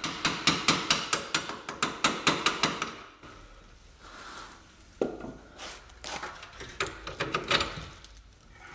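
Hammer striking a lower control arm bolt to drive it out of a car's front suspension, metal on metal. A quick run of blows, about five a second, for about three seconds, then a pause and a looser second series of blows.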